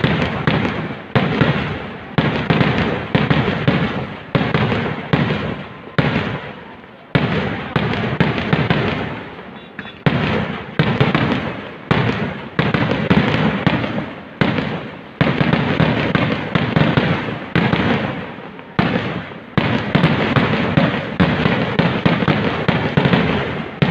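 Fireworks display (vedikettu): loud bangs going off in rapid succession, about one big blast a second with smaller cracks between them, each bang rising sharply and dying away before the next.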